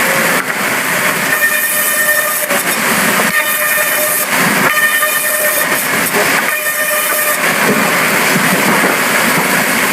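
Sawmill saw cutting timber: a loud, continuous whine and hiss that surges and eases several times, one to two seconds at a stretch.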